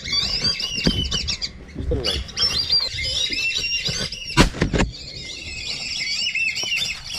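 A flock of whistling ducks calling together, with many overlapping high, curving whistles. About four and a half seconds in, a sharp double knock is the loudest sound, and a low rumble runs beneath.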